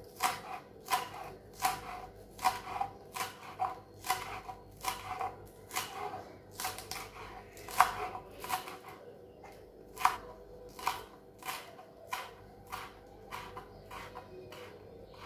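Kitchen knife chopping celery leaves and spring onion on a wooden cutting board: a steady run of knocks, about two or three a second, thinning out near the end.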